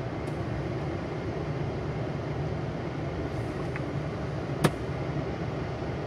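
Steady hum and rush of a 1997 Renault Twingo running with its heater blower on, heard inside the cabin, with one sharp click about four and a half seconds in.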